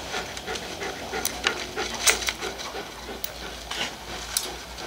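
A dog panting, with scattered sharp clicks and rustles from the harness buckles and nylon straps being handled.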